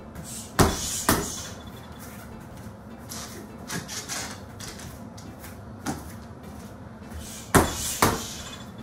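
Boxing gloves punching a hanging heavy bag: a quick two-punch combination about half a second in and another near the end, each a pair of sharp thuds half a second apart, with a few fainter thuds in between.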